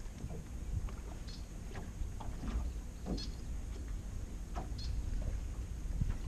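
Small waves lapping against a bass boat's hull, with a low wind rumble on the microphone and a few short high chirps.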